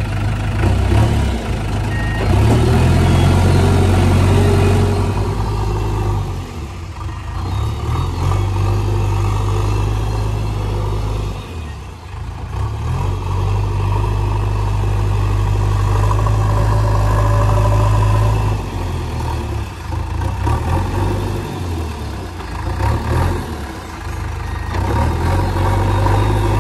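JCB 3DX backhoe loader's diesel engine running under load while the front bucket pushes soil, with a strong low hum. The engine note rises and falls several times as the load changes.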